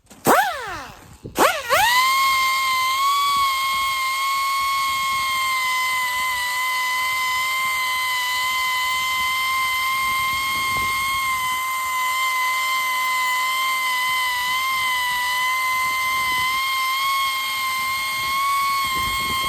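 A small high-speed power tool starting twice in quick succession, then running at a steady, high-pitched whine with an unchanging pitch.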